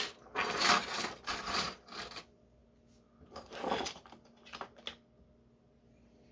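Rummaging through small tools on a workbench, searching for an Allen wrench: hard little objects clatter and rustle in three bursts, a long one in the first two seconds and two short ones a few seconds in.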